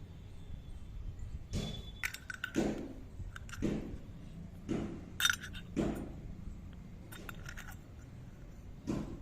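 Small hard toy kitchen pieces being handled and set down: a string of irregular knocks and clicks, several with a brief bright clink or ring, over a low steady hum.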